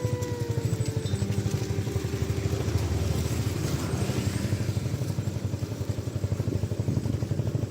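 A small engine running steadily with a rapid, even low pulsing. A brief pitched tone slides slightly downward in the first second.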